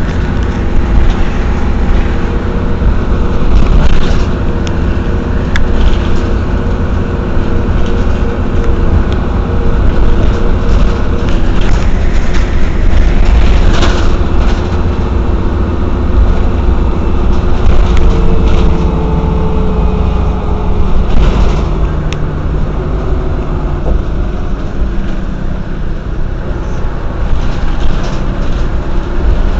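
Mercedes-Benz O 405 N city bus in service, its engine running loud and steady with the note shifting up and down as speed and load change. A few short knocks and rattles come through.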